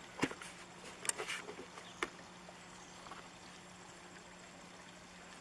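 Steady hum of a solar-powered 12-volt Fan-Tastic Endless Breeze fan running, with a few sharp clicks in the first two seconds.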